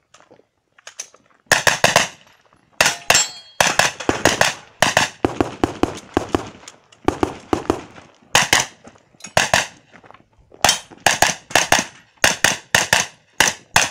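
Pistol-caliber carbine firing rapid shots in quick pairs and short strings, starting about a second and a half in, with brief pauses between groups as the shooter moves between positions.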